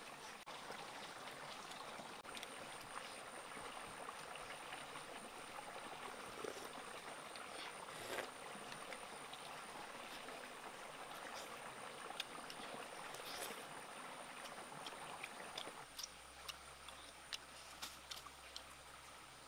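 Faint running water of a stream, a steady rushing hiss with a thin high tone above it and scattered small clicks. The water sound drops near the end, leaving the clicks clearer.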